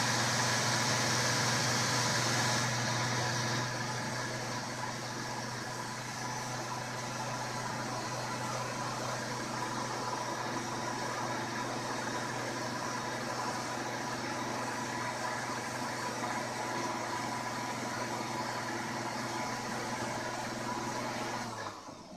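Moulinex blender motor running steadily as it blends a thin liquid cake batter. Its high whine eases and it turns a little quieter about three seconds in, and it is switched off near the end.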